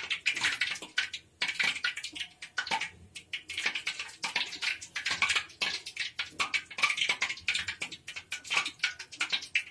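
Metal star-shaped cookie cutter pressed and worked through sesame-seed-topped dough on a wooden board: many small irregular clicks and scrapes of metal, seeds and fingers against the dough and board.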